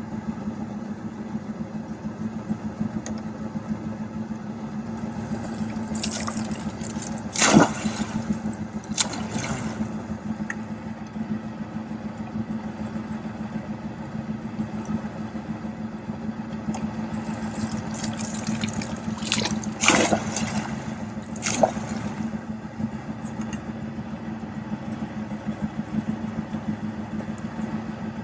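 Fish-stocking truck running with a steady hum, while several splashes of water sound in two clusters as netfuls of rainbow trout are dumped into the lake.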